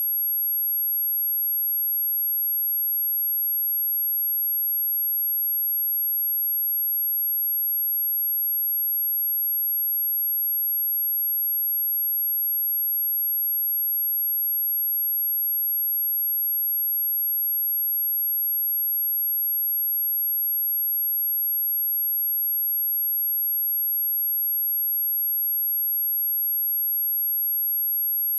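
A steady, pure 11504 Hz sine-wave test tone, one high-pitched unchanging whistle.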